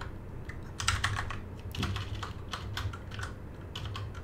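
Computer keyboard keys clicking in irregular runs of typing.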